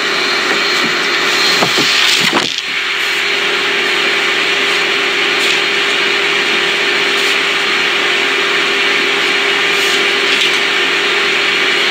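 A small motor running with a steady whirring noise and a constant hum, briefly unsettled about two seconds in.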